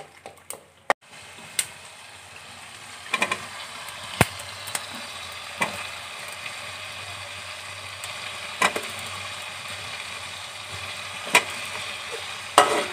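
Potato wedges frying in oil and tomato masala in an aluminium pot: a steady sizzle that comes in about a second in, with a metal spatula stirring and now and then knocking sharply against the pot, about seven knocks in all.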